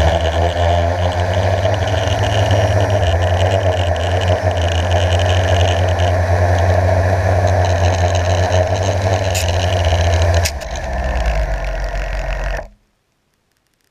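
Blade 350 QX quadcopter's four brushless motors and propellers buzzing steadily, heard from a camera mounted on the drone. About ten and a half seconds in there is a knock as it sets down on the snow. The motor note then falls as the props spin down, and the sound cuts off abruptly.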